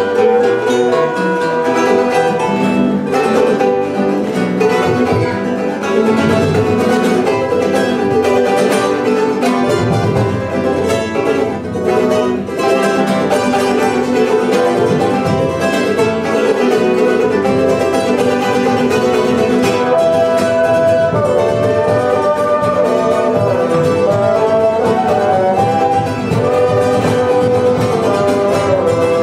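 Live acoustic ensemble music: strummed small guitars and an acoustic guitar, joined by a wooden cane flute and a bassoon.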